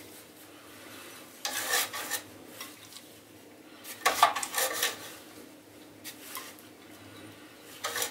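Pastry brush with a metal handle being dipped in a metal bowl of melted butter and brushed over the inside of a fluted metal toast-bread tin: a few short bursts of scrubbing and clinking a couple of seconds apart.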